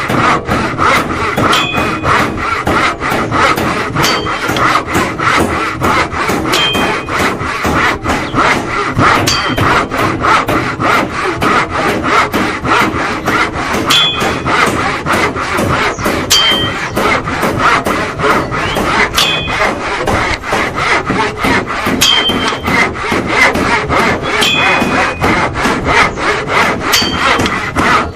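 Handsaw cutting wood in fast, regular strokes, several a second, with a short metallic ding every two to three seconds.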